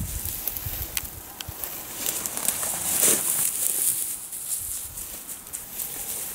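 Dry grass and stalks crackling and rustling as pointer dogs and a person on foot push through tall dry cover, with a louder swish about three seconds in.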